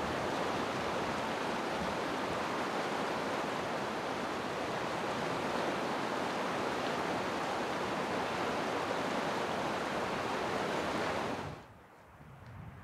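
Steady rushing of a fast mountain river. It cuts off suddenly near the end, leaving a much quieter outdoor background.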